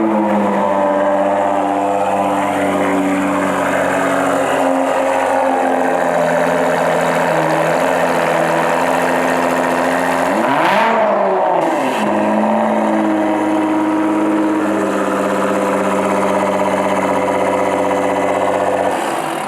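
Duramax diesel pickup engine running, revved up and back down once about halfway through, then shut off abruptly near the end.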